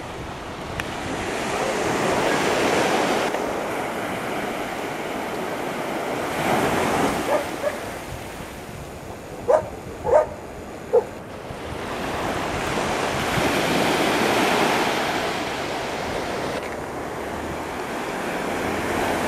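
Small waves breaking and washing up a sand beach, the surf swelling and easing every few seconds. About halfway through, an animal gives three short, sharp calls, louder than the surf.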